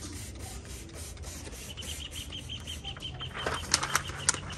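Crackling rustle of paper backing and vinyl decal strips being handled, loudest in a few sharp crinkles past the middle. Before that, a quick run of about a dozen high chirps, roughly seven a second, from a bird in the background.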